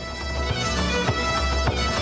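Instrumental Irish traditional music with a steady beat.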